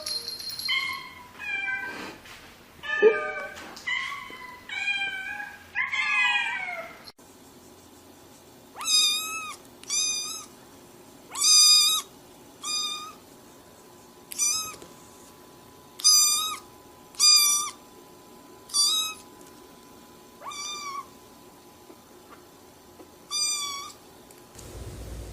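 Domestic cat meowing over and over, each meow a short rising-then-falling cry. The first few seconds bring a quick run of meows; after that come higher-pitched meows about every one to two seconds.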